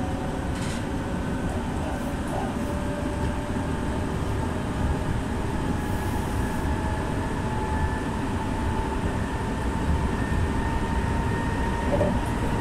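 Meitetsu electric train running on the rails, heard from inside the train: a steady rumble of wheels and track noise, with a faint motor whine that holds its pitch and creeps slightly higher in the second half.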